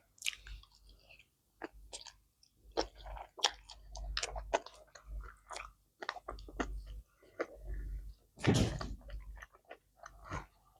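A person chewing sushi and seaweed salad with the mouth close to the microphone: irregular wet smacks, clicks and crunches. A longer, louder mouth noise comes about eight and a half seconds in.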